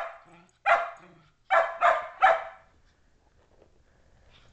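Shetland sheepdogs barking in play: five short, sharp barks in the first two and a half seconds, the last three in quick succession, then a quiet stretch.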